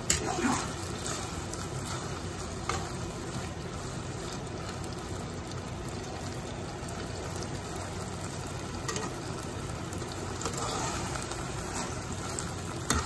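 Marinated beef slices sizzling and bubbling in a nonstick pot, with liquid poured in at the start and a spatula knocking against the pot a few times as the meat is stirred.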